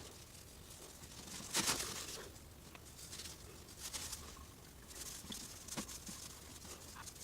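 Motor oil draining from an engine's oil pan into a drain pan, spattering in irregular bursts, the loudest about one and a half seconds in.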